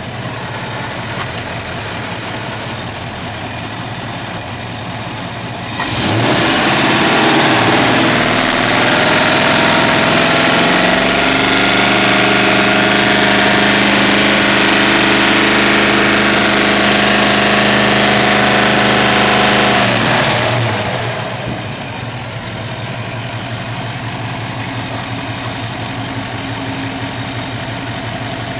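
Ford small-block V8 with Crane roller rockers running at idle, revved up about six seconds in and held at a steady higher speed, then dropping back to idle about twenty seconds in. The valvetrain noise is what the owner questions as possibly too much for roller rockers.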